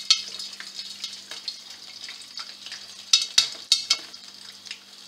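Popcorn kernels popping in a covered pan: scattered sharp pops, a cluster of them about three seconds in, over a steady sizzle.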